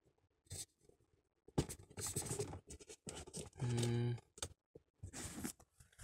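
Scratching and rubbing handling noise with scattered light clicks as hands work the phone and the cardboard tank parts, with one short low hum a little past halfway.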